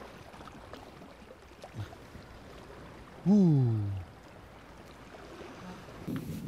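A man's brief vocal shout about three seconds in, falling in pitch, over a faint steady hiss of sea and wind. A few light knocks and shuffles come near the end.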